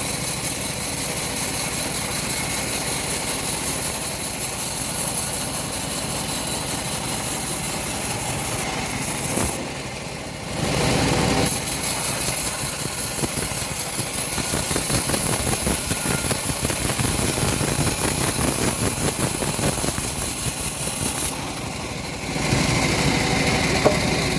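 Home-built engine-driven bandsaw sawmill running steadily, its level dipping briefly twice.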